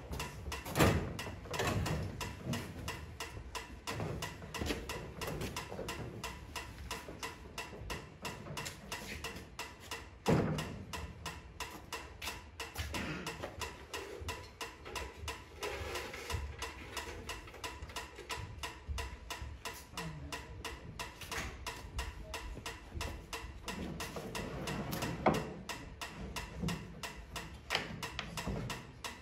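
Rapid, steady mechanical ticking, with a few louder knocks about a second in, just after ten seconds, and around twenty-five seconds.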